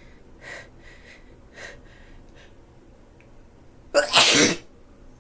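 A woman with a cold sneezing: a few soft, short breaths, then one loud sneeze about four seconds in.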